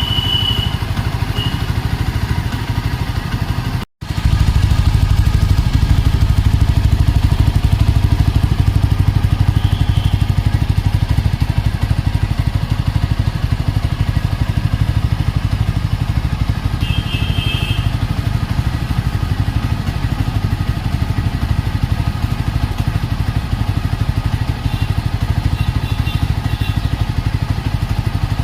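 Yezdi Scrambler's 334 cc single-cylinder engine idling steadily through its dual exhaust, a fast even run of firing pulses. The sound cuts out for a moment about four seconds in.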